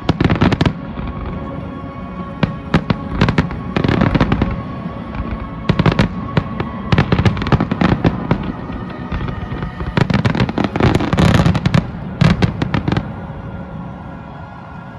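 Aerial fireworks shells bursting in volleys: sharp booms and crackle coming in clusters, with the densest barrage about two-thirds of the way through. The bangs stop a couple of seconds before the end.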